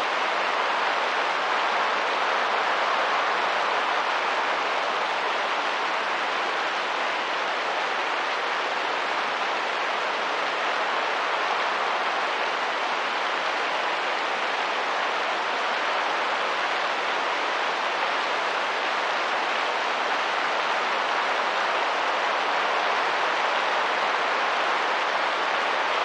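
Rain and wind, a steady even hiss that does not change.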